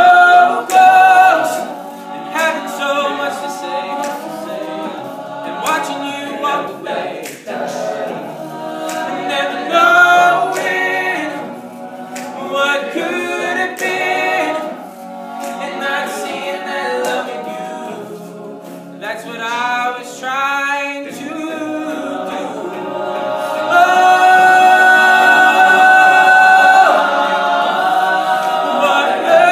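All-male a cappella group singing a ballad: a solo lead voice over the group's sung backing harmonies, with no instruments. Near the end the voices swell into a loud, long-held chord.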